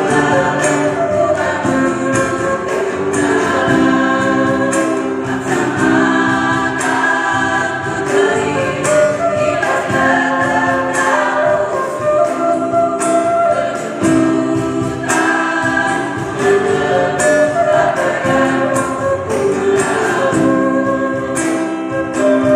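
Women's choir singing a Karo-language hymn, with acoustic guitar accompaniment.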